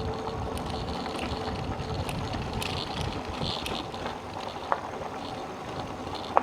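Steady riding noise of an electric bike rolling along a sandy dirt road, with a sharp click a little before the end and a louder one right at the end.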